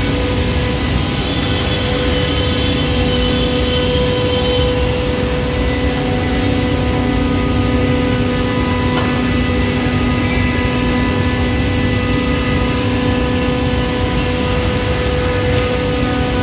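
Automatic CNC scroll saw running steadily: a loud, continuous machine drone with a constant hum-like tone.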